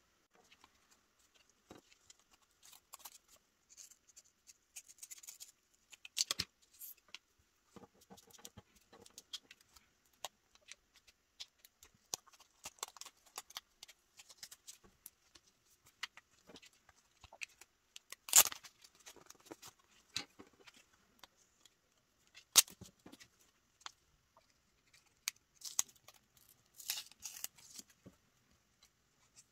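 Photocards and envelopes handled by hand as the cards are pulled out: scattered light rustling and small clicks, with two sharper snaps about 18 and 22 seconds in.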